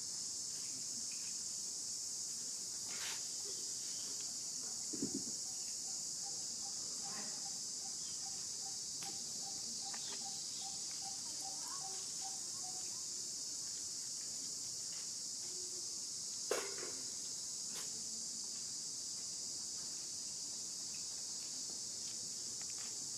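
A steady, high-pitched insect chorus drones without a break. A faint, evenly pulsed note repeats for several seconds midway through, and a few short knocks sound, the sharpest about two-thirds of the way in.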